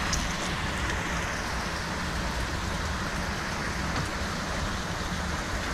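Rain falling steadily, an even, constant hiss with no let-up.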